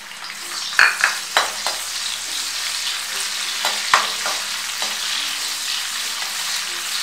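Sliced onions sizzling in hot oil in a metal kadai, the sizzle growing louder over the first second. They are stirred with a perforated metal spatula that scrapes and clinks against the pan about seven times.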